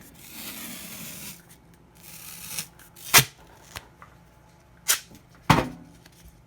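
Gaff tape being pulled off its roll, a rustling rip in the first second and a half, then a few sharp knocks and small clicks from handling the tape and cable.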